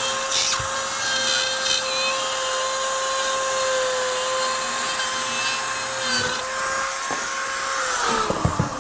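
Corded rotary cutout tool with a guide-point bit, running at a steady high whine as it cuts through drywall around an electrical box. The motor winds down near the end, falling in pitch.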